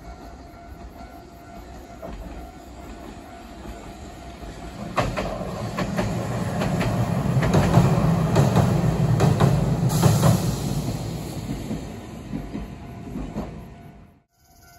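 Hiroden 3700-series tram crossing a steel girder bridge. The rumble builds about five seconds in, and the wheels clack over rail joints as it passes closest, loudest near the middle. It then fades as the tram moves away.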